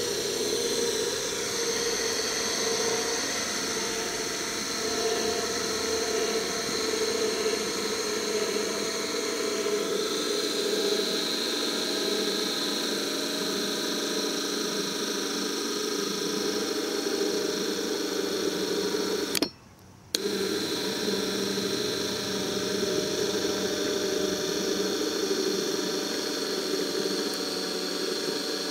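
Becker Scubadrive R200 3G tubular DC motor and gearbox running steadily on direct battery power, a hum with a higher whine over it. Its disconnected electromagnetic brake is dragging and loading the motor. The sound cuts out abruptly for under a second about twenty seconds in.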